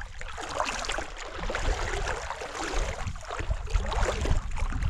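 Wind rumbling on the microphone, with water splashing and sloshing around a small fishing boat.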